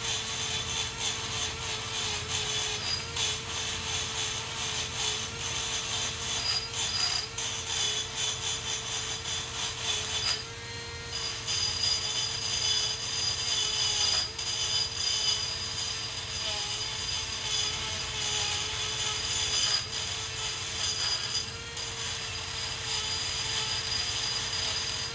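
Continuous rasping scrape of rust and debris being cleaned off rear brake hardware, with a short break about ten seconds in, over a steady hum.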